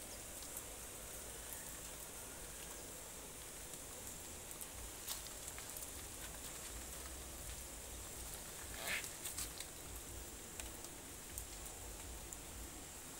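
Faint outdoor ambience: a steady low hiss with scattered small clicks and crackles, and a brief louder sound about nine seconds in.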